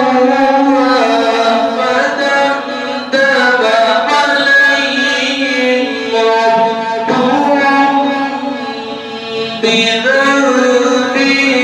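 A man's voice chanting a slow melody into a microphone: long held notes that slide and waver between pitches, sung in phrases with short breaks between them.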